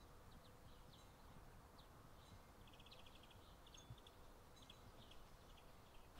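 Faint outdoor ambience with small birds chirping, including a quick trill of rapid repeated notes a little under halfway through, over a low steady rumble.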